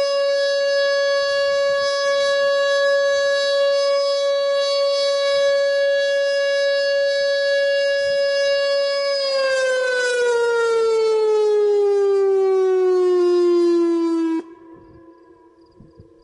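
Whelen WPS 2910 electronic outdoor warning siren sounding a steady alert tone. About nine seconds in, the tone slides down in pitch for some five seconds and then cuts off abruptly as the three-minute test alert ends.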